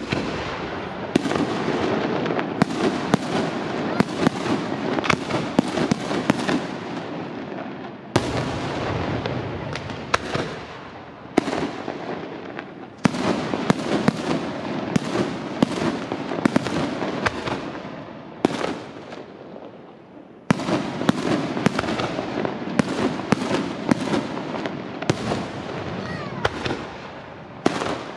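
Aerial fireworks display: a dense, continuous barrage of bangs and crackling shell bursts, with fresh loud volleys starting about 8, 13 and 20 seconds in.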